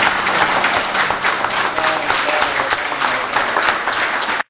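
Audience applauding with dense clapping as a fado performance ends. The sound cuts off abruptly near the end.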